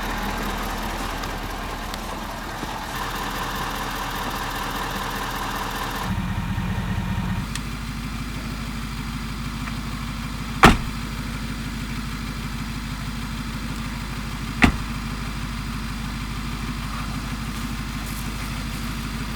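A vehicle engine idling steadily, its note shifting about six seconds in, with two short sharp knocks about four seconds apart in the second half.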